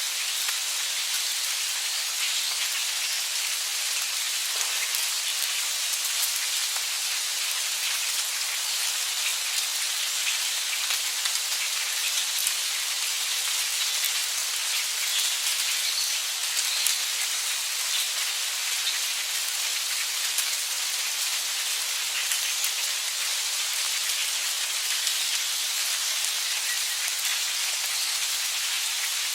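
Heavy rain falling steadily: an even, dense hiss with many small, sharp drop hits scattered through it.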